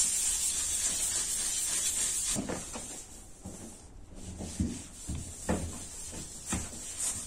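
500-grit sandpaper sanding the filled area of a car bonnet, a steady hiss that stops about two and a half seconds in. After that come a few soft knocks and handling noises.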